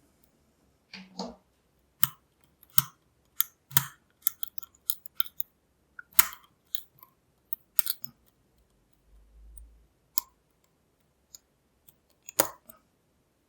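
Lock picking in a Lockwood V7 padlock: irregular metallic clicks and taps as a pick works the pin stack, with quiet gaps between them.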